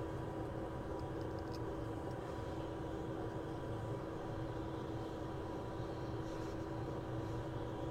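Steady whir of a workbench blower, such as a hot-air rework station or fume extractor, with a constant hum.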